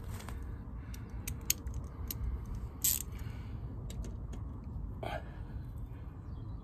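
Scattered small metallic clicks and taps of a hand tool on the rear ABS sensor's little bolt as it is refitted beside the brake disc, over a low steady background rumble.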